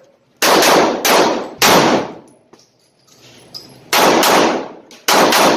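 Handgun firing several shots, mostly in quick pairs, each leaving a ringing decay.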